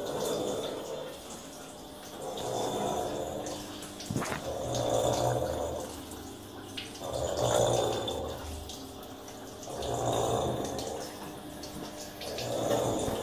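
Water trickling in an aquaponics grow bed, under a rhythmic swelling sound that comes about every two and a half seconds.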